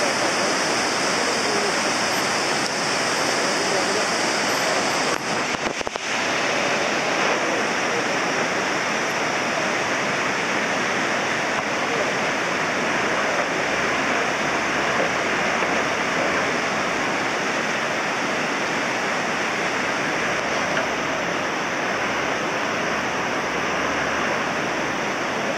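Fast mountain stream rushing over boulders: a steady, loud rush of water that barely changes.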